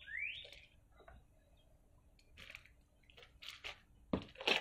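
Two quick rising tones at the very start, then faint scattered rustling and a louder crinkle of a clear plastic bag near the end.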